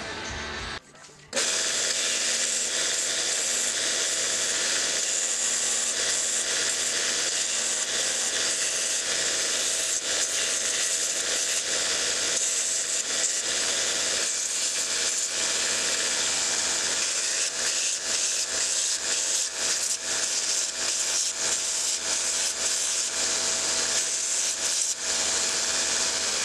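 Bandsaw running steadily, sawing through a plastic screwdriver handle. It starts up sharply about a second in, with small dips in the sound in the second half.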